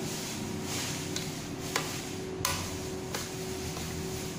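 A few light clicks and taps of plastic and metal parts being handled as the end flange and gear are fitted onto a copier's OPC drum, over a steady background hum.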